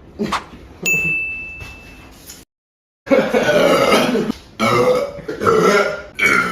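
A man belching loudly: two long, drawn-out burps from about three seconds in, with a short break between. Before them comes a click and a brief electronic beep, then a moment of dead silence at a cut.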